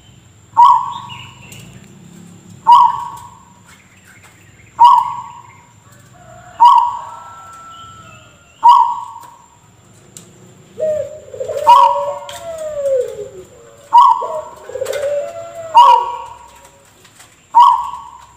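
Zebra dove (perkutut) giving its odd cough-like call: a short, sharp note repeated about every two seconds, nine times. About eleven seconds in and again a few seconds later, wavering gliding bird calls sound alongside it.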